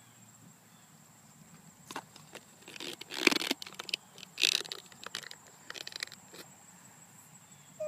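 Handling noise: a handful of short rustling, rubbing bursts close to the microphone, the loudest about three seconds in, over a faint steady high-pitched tone.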